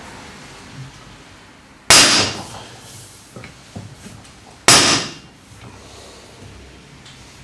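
Two sharp metallic bangs, a little under three seconds apart, each ringing briefly, with a few small knocks between them: the seatpost puller and jig working against a seized seatpost.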